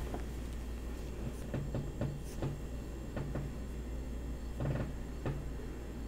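A few soft scattered taps and rustles from hands moving close to the microphone, over a steady low hum.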